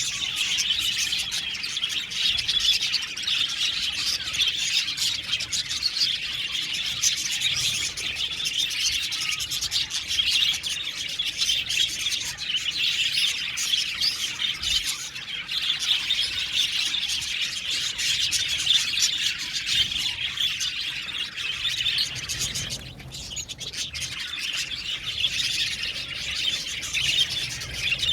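A flock of budgerigars chattering and chirping continuously, many birds at once, with a short lull about 23 seconds in.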